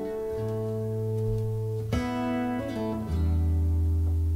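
Jazz playing on a hi-fi system, a Denon PMA 1560 amplifier driving Wharfedale floorstanding speakers. Chords change every second or so over held low bass notes.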